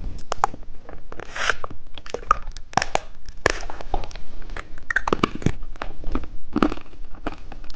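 Plastic candy packaging crinkling and clicking as it is handled, in irregular sharp rustles and taps.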